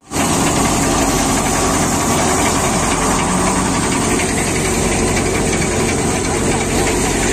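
Vardhman five-fan multicrop thresher running steadily while threshing paddy: a loud, constant machine drone with no change in speed.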